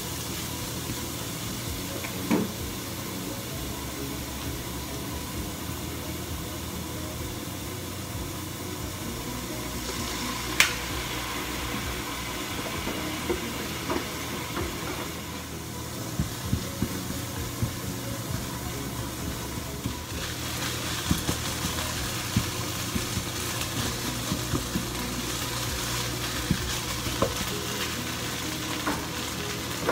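Minced meat sizzling as it is stir-fried in a deep frying pan, with scattered sharp clicks of the spatula against the pan.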